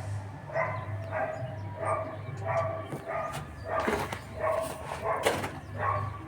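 A dog barking repeatedly, roughly one bark every half second, over a steady low hum. A few sharp knocks come about four to five seconds in.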